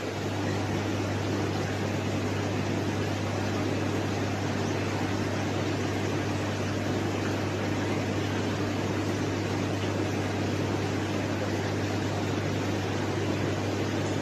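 Aquarium air pump running the tank's sponge filters: a steady low hum under an even hiss.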